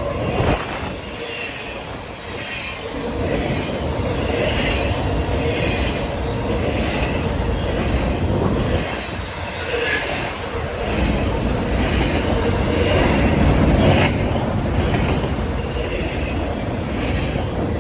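A train rolling past, its rail cars rumbling with a regular clack of wheels over the rail joints.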